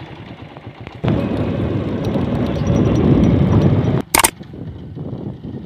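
A loud, rough rushing and rumbling noise starts abruptly about a second in and cuts off sharply at four seconds. It is followed at once by a short, sharp click, the mouse-click sound effect of an animated like-and-subscribe button.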